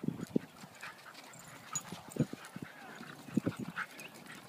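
Two dogs, one of them a Great Dane, play-wrestling, with a few short, low growls and scuffles scattered through.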